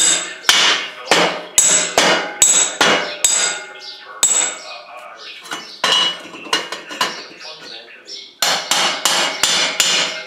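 A hammer striking the steel chassis frame of a homemade locomotive in repeated blows, about two to three a second, each with a short metallic ring. The blows are lighter in the middle, then a quick run of heavier blows comes near the end.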